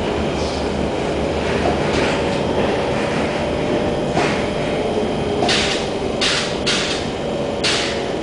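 Interior running noise of an SMRT C151 metro train travelling on the track: a steady rumble, with several short hisses in the second half.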